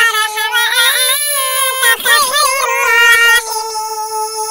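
A high-pitched voice chanting Quran recitation (tilawat) in long, ornamented held notes, settling into one long steady note for the last second or so.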